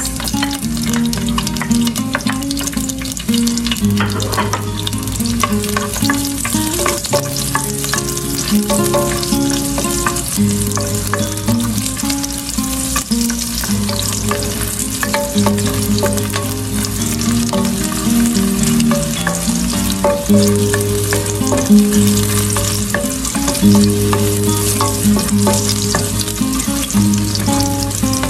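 Garlic sizzling and crackling in hot oil in a nonstick pot while a spatula stirs it around the pan. Soft background music with slow, changing bass notes plays underneath.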